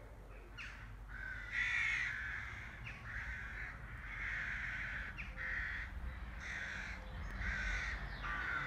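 A crow cawing over and over, about one harsh call a second, over a low steady rumble.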